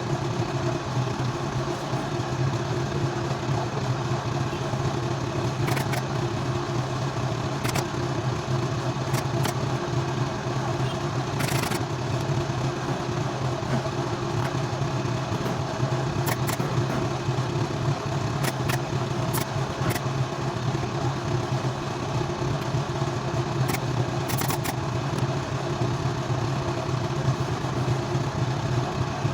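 A steady motor or engine drone at an even level, with a few short sharp clicks scattered through it.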